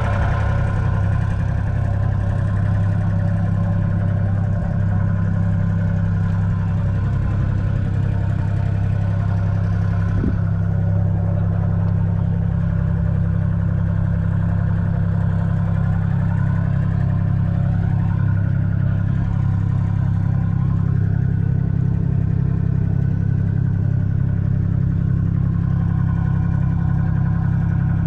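1966 Ford Dexta 2000's 2.6-litre three-cylinder diesel engine idling steadily.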